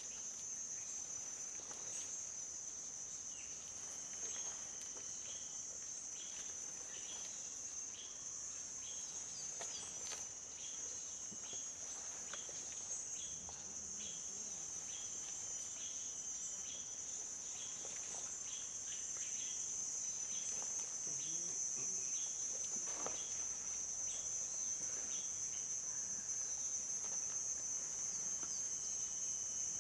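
Steady high-pitched insect trill, like crickets, with short chirps repeating about once or twice a second through most of it and a few faint light ticks.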